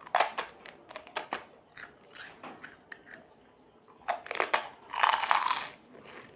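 Crisp pani puri shells being bitten and crunched while eating, close to the microphone. A quick run of crunches comes at the start, then a louder, denser stretch of crunching about four to six seconds in.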